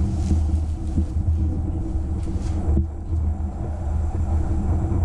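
Steady low rumble and hum of the spray booth's filtered exhaust fan running, with the booth's plastic sheeting rustling briefly as it is pushed aside.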